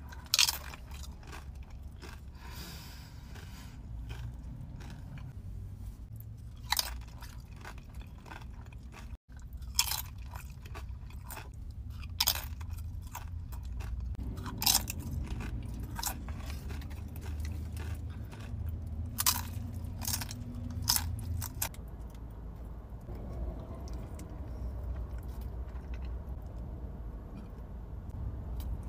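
Close-miked eating: chewing with a series of sharp, crunchy bites, over a low steady rumble. The crunches thin out in the last few seconds.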